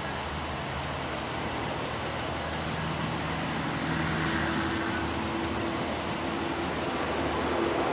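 Steady hum of an idling vehicle engine under outdoor background noise, with a faint steady tone coming in about three and a half seconds in.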